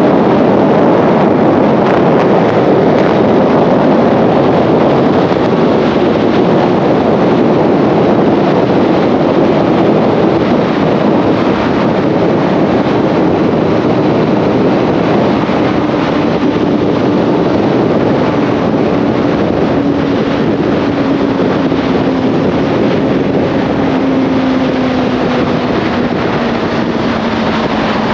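Motorcycle riding: loud wind rush on the rider's microphone over the engine, whose note slowly falls in pitch as the bike eases off.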